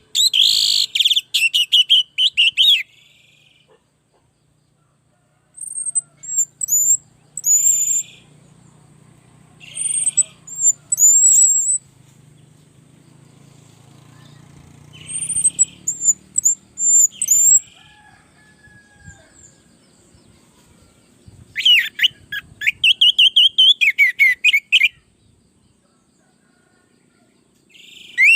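Orange-headed thrush singing in bursts. Rapid runs of repeated high notes open the song and return about two-thirds of the way in, and between them come thin, very high whistled phrases mixed with short raspy notes, with brief pauses.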